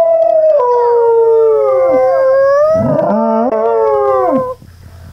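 A dog howling: one long, drawn-out howl that wavers in pitch, then a second howl starting about three seconds in, which stops about four and a half seconds in.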